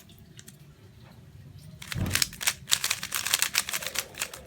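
Meilong 3x3 speedcube turned fast during a solve: a few faint clicks, then from about two seconds in a rapid run of plastic clacking from the turning layers.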